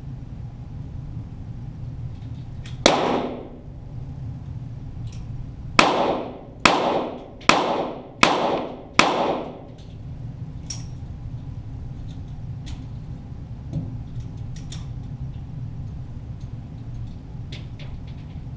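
.22 Walther GSP target pistol shots, echoing in an indoor range: one shot about three seconds in, then a string of five about a second apart. Fainter sharp clicks follow.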